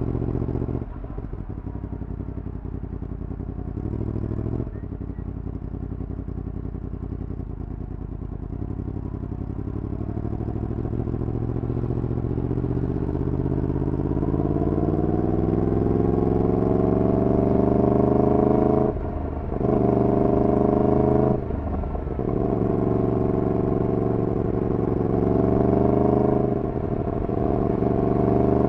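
Yamaha MT-10's crossplane inline-four, running through a decat full exhaust system. It holds low revs at first, then rises steadily in pitch as the bike accelerates, with two short breaks in the note, and climbs again near the end.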